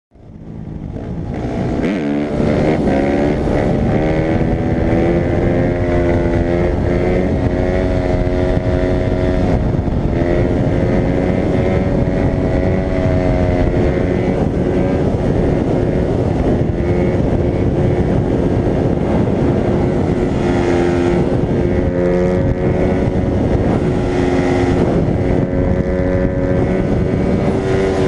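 Suzuki RM-Z250 dirt bike's single-cylinder four-stroke engine running hard at high revs through a wheelie. It fades in at the start and climbs in pitch over the first couple of seconds, then holds fairly steady with small rises and dips as the throttle is worked.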